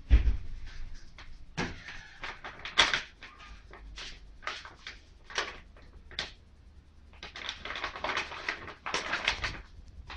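Large brown paper envelope rustling and crinkling in irregular bursts as it is handled and unfolded, with a dull thump right at the start.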